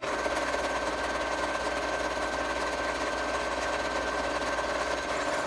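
Electric sewing machine running at a steady speed, stitching a seam, with a steady whine from its motor over the rapid needle chatter. It starts at once and stops suddenly near the end.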